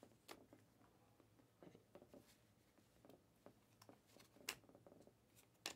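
Near silence with faint clicks and soft ticks of Panini Mosaic basketball trading cards being slid and flipped through by hand, with two sharper card clicks about four and a half seconds in and near the end.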